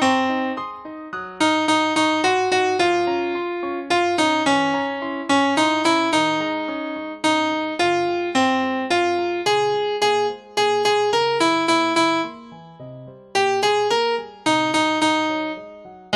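Piano playing a tune in struck notes and chords, phrase after phrase, each note fading after it is struck, with short breaks between phrases.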